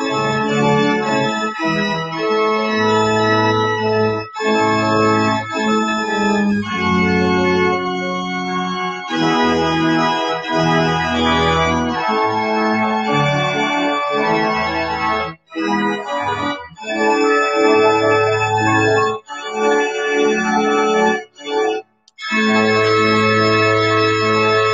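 Organ playing a hymn tune in sustained chords, with short breaks between phrases in the second half.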